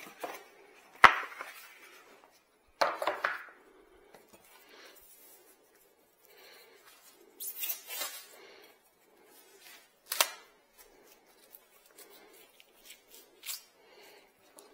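Packing material from a cardboard shipping box being handled and cleared away: a sharp knock about a second in, bursts of rustling and crinkling, another sharp hit about ten seconds in, and scattered small clicks between.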